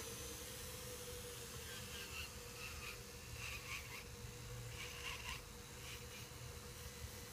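A faint, steady electrical hum, with a few short, soft scratchy sounds between about two and five and a half seconds in.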